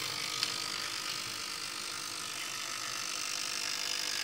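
Steady background hiss with a faint hum, and one light click about half a second in.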